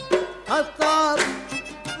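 Oud being plucked, playing a melodic phrase of separate notes in a Gulf folk-song style, each note striking sharply and then ringing.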